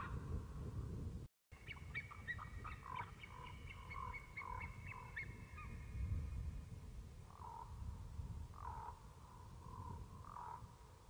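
Common ravens calling: a quick run of short calls, then three single croaks spaced a second or more apart, over a low background rumble.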